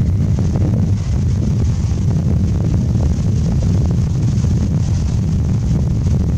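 Loud, steady low rumble throughout, with faint irregular tapping over it from a Japanese pygmy woodpecker chiselling out its nest hole in dead wood.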